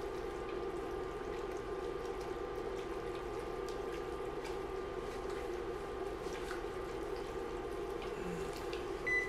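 A spoon stirring a thick pot of macaroni, ground beef and melting cheese sauce, a wet sloshing over a steady hum. A short high beep near the end.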